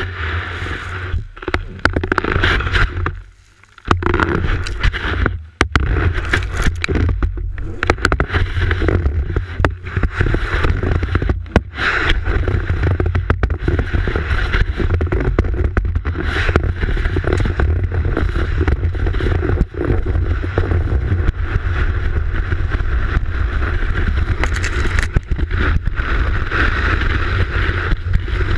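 A telemark ski sliding over snow, heard from a camera mounted on the ski itself: a steady rushing hiss and scrape with a deep rumble of wind and vibration. It breaks off briefly twice in the first six seconds.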